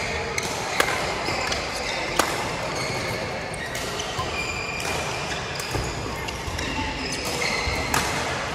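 Badminton play: sharp racket hits on the shuttlecock, the loudest about a second in, just after two seconds and near the end, with short high squeaks of court shoes on the floor in between.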